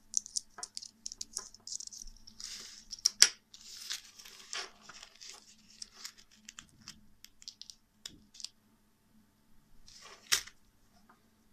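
Small steel screwdriver bits clicking and scraping against each other and the metal handle as they are handled and slid in and out of a tool wallet's loops, with rustling of the wallet. There are sharp clicks about three seconds in and again near the end.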